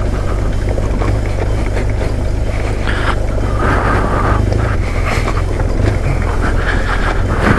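Honda Transalp motorcycle engine running steadily in a deep, even drone while riding slowly over a loose rocky dirt track, with the crunch of stones under the tyres.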